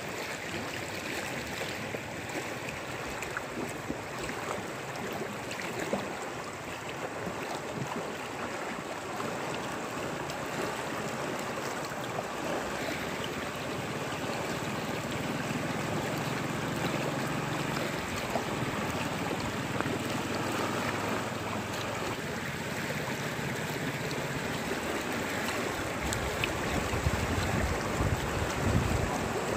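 Floodwater of the Amu Darya rushing and churning as the river overflows its bank: a steady rushing noise. Wind buffets the microphone near the end, adding a low rumble.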